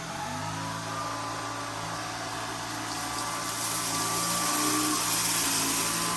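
Shark IZ320UK cordless stick vacuum running in carpet mode on low power: a steady motor whine with a rushing air noise. The motor's pitch steps up slightly just after the start, and the rush of air grows louder about halfway through.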